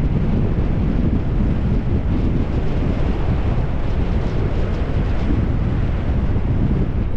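Wind buffeting a GoPro's microphone during a fast downhill bicycle ride: a steady, loud rumble with no letup.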